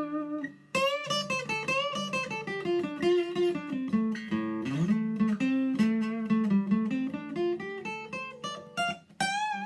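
Seagull Maritime SWS acoustic guitar with a cedar top, played solo: a run of picked notes and chords, with bent, wavering notes and a rising slide about halfway through.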